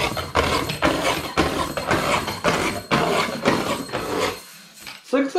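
A quick series of knocks and clattering impacts, two or three a second, stopping about four and a half seconds in.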